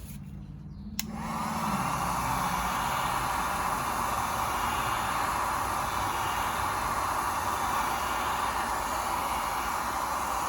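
Heat gun switched on with a click about a second in, then blowing steadily, warming the nylon locking ring of a Bing carburettor's diaphragm.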